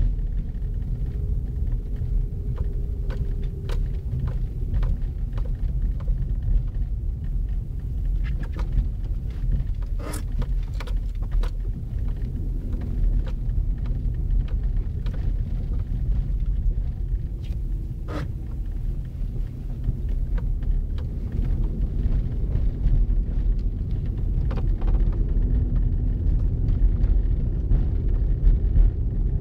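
Car heard from inside the cabin while driving slowly on snowy roads: a steady low rumble of engine and tyres, with a faint engine hum that drifts up and down in pitch and grows a little louder near the end. A few sharp clicks stand out over it.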